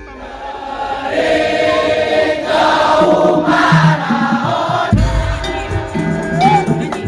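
Madurese ul daul (tong-tong) ensemble music: after a brief lull, a melodic lead line rises over the ensemble, and the low drums come back in about five seconds in.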